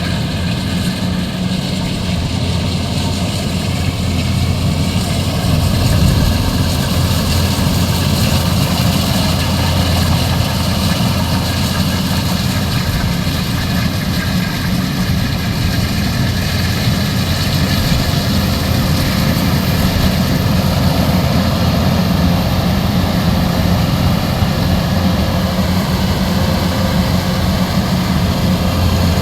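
Kubota DC105X combine harvester's diesel engine running steadily, with a continuous low drone.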